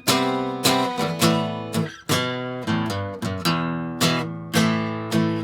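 Acoustic guitar strumming chords in a steady rhythm, about two strums a second, with no voice.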